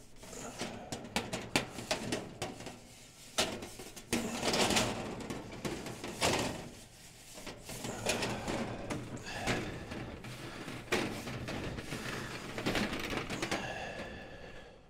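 Copper tubing coil being pulled apart and spread along a metal stovepipe, with irregular clicks, knocks and scraping as the copper turns rub and tap against the pipe and each other. A short ringing tone comes near the end.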